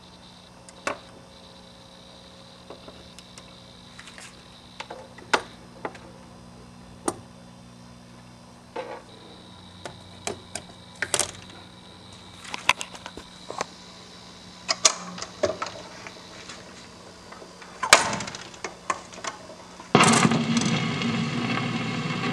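Espey Model 641 record changer cycling: a string of mechanical clicks and clunks over a steady electrical hum, the loudest clunk about 18 s in. About 20 s in, the next 78 rpm record starts playing music.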